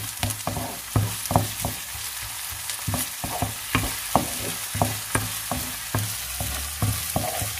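Wooden spatula scraping and knocking against a nonstick wok, about three strokes a second, while minced garlic, onion and ginger sizzle steadily in hot oil.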